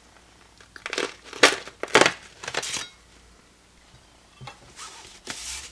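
Packaging torn open by hand: several quick rips of fibre-reinforced packing tape and cardboard wrapping, the loudest in the first half, then lighter crinkling near the end.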